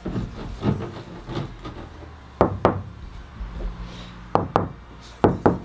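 Knocking on the VW Crafter van's sheet-steel wall panels, which are lined with foil-faced butyl sound-deadening mat. A few softer taps come first, then sharper knocks in quick pairs, three times.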